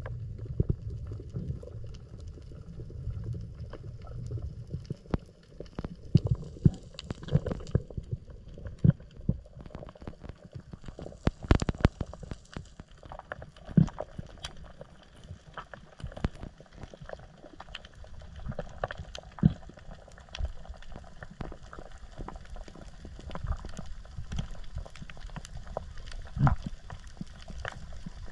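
Underwater ambience: a low rumbling water noise with irregular sharp clicks and knocks scattered throughout.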